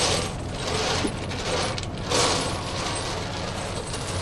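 Bingo balls rattling and tumbling in a bingo machine as the next number is drawn, swelling about two seconds in, over a steady low hum.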